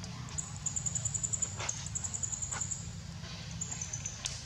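A high-pitched, rapidly pulsing animal call that starts about half a second in and stops near three seconds, with a few sharp clicks.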